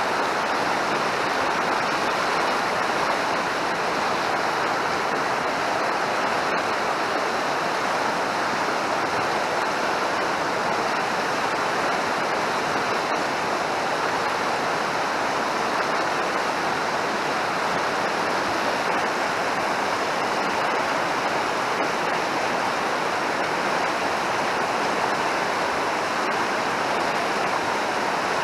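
Fast mountain stream rushing steadily, a constant even wash of water noise with no change throughout.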